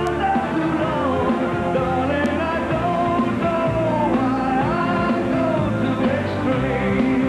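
Rock song with a sung lead vocal over the band.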